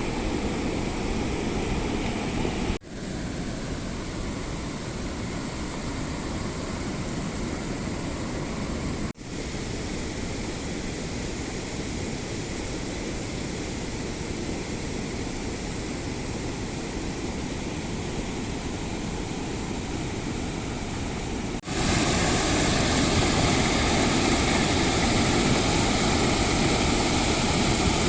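Waterfall's steady rushing roar of turbulent water, cut off and resumed abruptly three times, and louder from about twenty-two seconds in.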